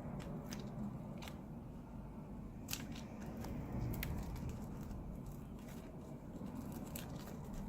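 Scattered small clicks and ticks of hands and tools handling laptop parts on a workbench, over a faint low hum.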